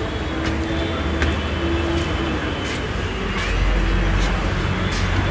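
Steady low rumble with a noisy hiss over it, growing louder about three and a half seconds in, with a few faint clicks.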